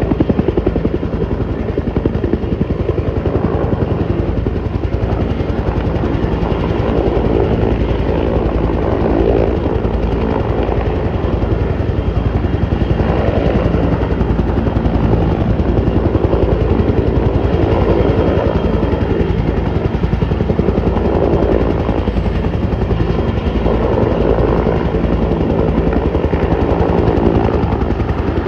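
Bell 205 helicopter hovering just above the pad: the rapid, steady beat of its two-bladed main rotor over the running turbine engine, swelling and easing every few seconds.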